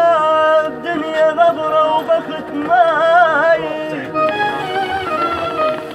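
Arabic song music: a melody of held, wavering, ornamented notes over steady instrumental accompaniment.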